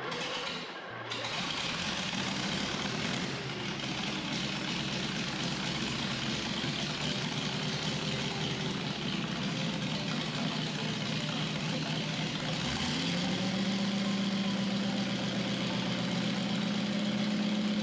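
FV432 Mark 1's straight-eight petrol engine running out of the vehicle with no exhaust fitted. About thirteen seconds in the revs rise a little and hold at the higher speed.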